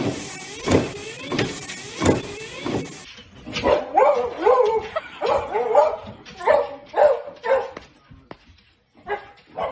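A dog yelping and whining excitedly in short, pitch-bending bursts, starting about three seconds in and dropping off shortly before the end. Before that comes a regular sharp sound, about every two-thirds of a second.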